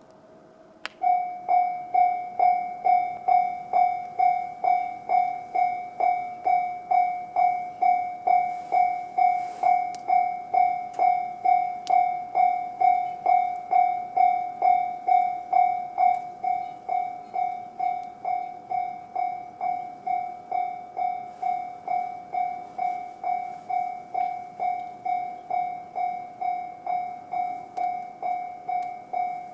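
Japanese railway level-crossing alarm switching on with a click about a second in, then sounding the JR-standard electronic crossing bell: a steady repeating ding a little over twice a second, slightly softer in the second half. It is the warning that a train is approaching.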